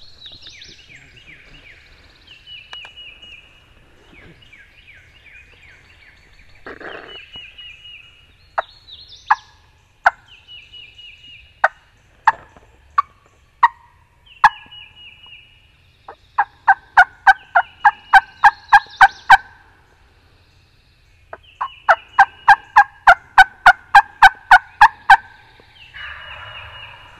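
A wild turkey gobbler gobbling again and again in the distance, answered up close by a hunter's hen-turkey calling: single sharp notes, then two long loud runs of quick yelps.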